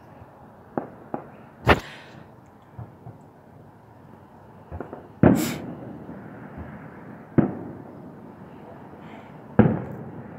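Aerial fireworks shells bursting: several sharp bangs at uneven intervals, each trailing off in an echo, the loudest about five seconds in.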